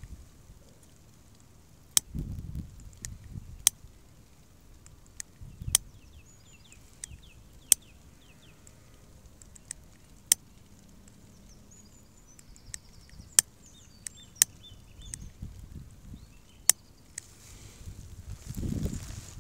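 Plastic disposable lighter being flicked repeatedly, about ten sharp clicks at irregular intervals, with low rumbles of hands handling it close to the microphone.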